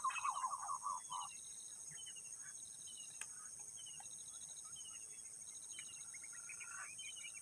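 Wild birds calling: a busy burst of chirps for about the first second, then scattered short falling notes and chirps, over a steady high-pitched whine.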